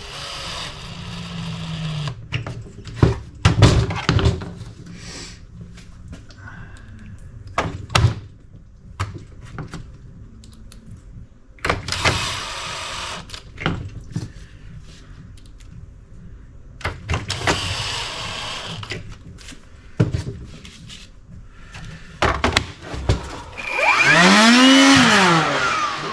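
Clicks and knocks from reassembling a plastic tool housing, with a few short stretches of hiss, then near the end a Ryobi 18V cordless blower's motor and fan spin up and wind back down in a short test run. The blower now runs again after the repair.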